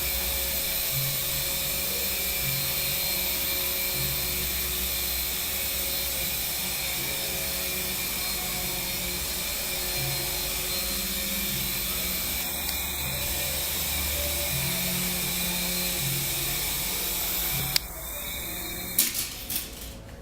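Small electric radio-controlled helicopter flying, its motor and rotor making a steady high-pitched whine. Near the end the whine changes, a sharp knock sounds, and the motor stops.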